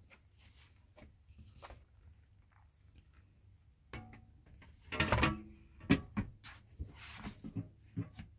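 Handling noises at a glass display cabinet as a hard-cover certificate folder is moved among its glass shelves. About four seconds in a loud scraping rub starts, with a brief ringing tone, then a sharp knock and a run of lighter clicks and taps.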